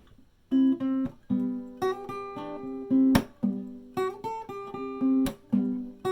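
Acoustic guitar playing the intro of a song, starting about half a second in. The chords are cut off short between strokes, and two sharp percussive hits fall among them.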